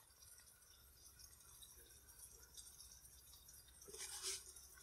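Near silence, with a brief faint noise about four seconds in.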